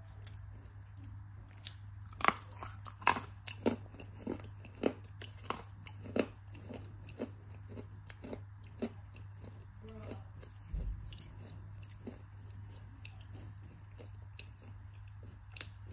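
Close-up crunching bites and chewing of a dry Mexican edible clay stick. The sharp crunches come thick in the first half, then thin out to scattered ones as she chews.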